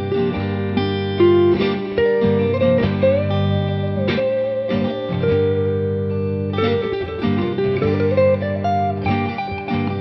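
Squier Bullet Stratocaster electric guitar playing a lead line of sustained single notes over steady low notes. A held note wavers with vibrato about three to four seconds in, and notes bend or slide upward near the eight-second mark.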